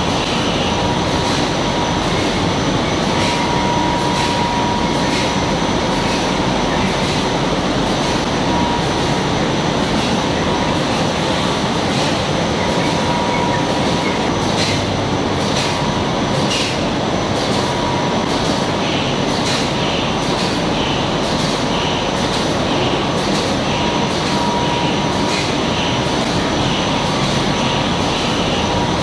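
An eight-colour rotogravure printing press running: a loud, steady machine noise with a faint steady whine and light clicks roughly once a second.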